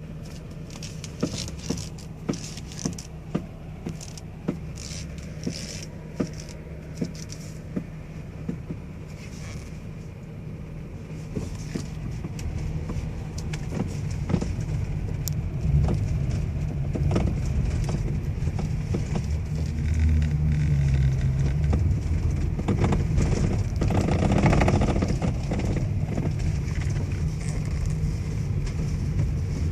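Knocking from the steering of a Toyota Alphard 3.5, a steering fault: a run of sharp knocks, about one or two a second, in the first several seconds. After that, scattered knocks sound over the louder, low rumble of the vehicle.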